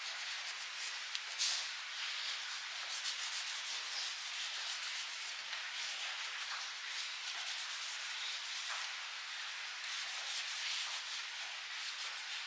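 Abrasive rubbing on a handmade Bowie knife: quick, repeated hand strokes making a steady, scratchy sanding sound, with one sharper scrape about a second and a half in.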